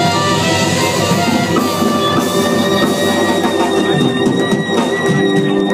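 Live blues band playing, with electric guitar and drum kit; a high note is held for several seconds in the middle.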